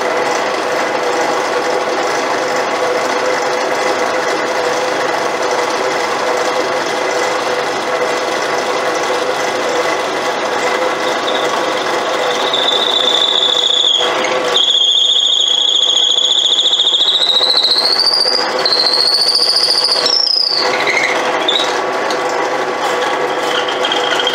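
Bench drill press running steadily while a large metal-cutting twist bit bores into a wooden block. About halfway through, a high-pitched squeal sets in and climbs in pitch over several seconds.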